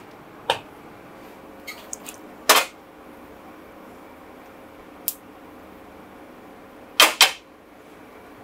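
A non-stick tawa knocking against the gas stove's pan support as it is lifted, tilted to spread the oil, and set back down. A few sharp knocks, the loudest about two and a half seconds in, with a quick double knock about seven seconds in, over a faint steady hiss.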